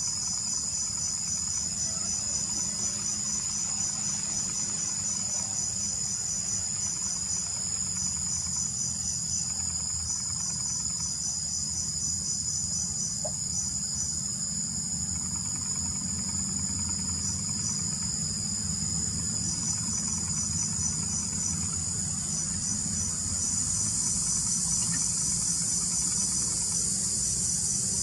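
Night insects, crickets among them, trilling in a steady high-pitched chorus. One insect chirps in a regular pulse of about three a second, breaking off and starting again. The chorus grows louder near the end.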